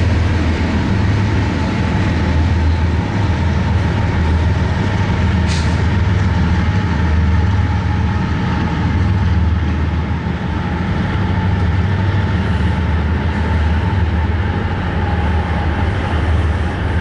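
Loaded coal hopper cars of a freight train rolling past with a steady, loud low rumble. A brief high-pitched screech comes about five and a half seconds in.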